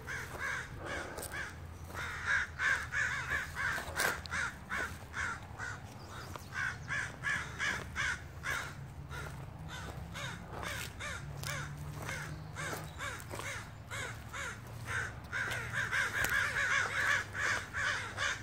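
Ravens calling in quick, repeated caws, thinning out about halfway through and picking up again near the end, over a steady low hum.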